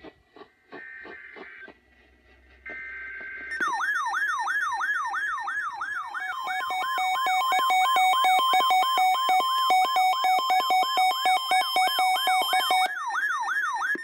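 Emergency Alert System broadcast: screeching digital SAME header data bursts, two of them in the first few seconds. From about three and a half seconds in, a loud siren-like alert tone follows, a falling whoop repeating about two and a half times a second over steady beeping tones. The alert tone stops just before the end.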